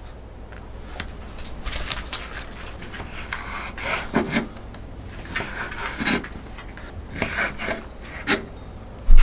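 Kitchen knife cutting bacon on a wooden cutting board: a run of short slicing strokes, each ending in a knock of the blade on the board, about one a second. A loud thump comes right at the end.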